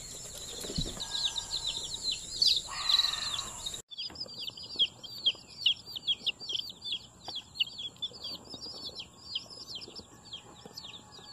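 A boxful of day-old white-crested black Polish chicks peeping constantly, many short falling peeps overlapping in a dense chorus. The cardboard box is handled during the first few seconds.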